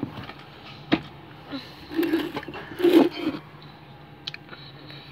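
Handling noise: a sleeve brushing and rubbing against the phone as an arm reaches across it, with a sharp knock about a second in and two scraping rustles around two and three seconds.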